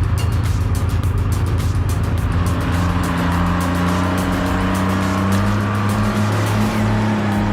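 Vehicle engine running steadily under load, its pitch stepping up a couple of times.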